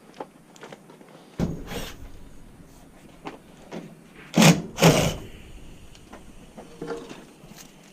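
A few knocks and clunks. There is one about a second and a half in, then the two loudest about half a second apart just past the middle, with fainter clicks between.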